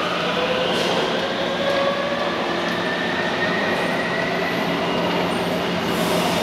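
Taipei Metro train pulling out of the station, its motors whining in several tones that climb slowly in pitch as it gathers speed, over a steady rumble.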